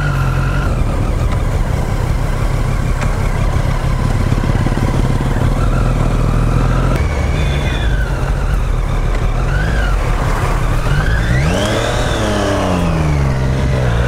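Superbike engine running while riding, with wind noise; about eleven seconds in the engine note rises and then falls again as the revs go up and come back down.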